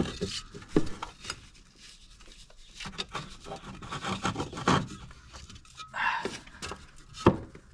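A new heater core being worked into its heater housing: rubbing and scraping with irregular knocks and clicks, the sharpest knock near the end.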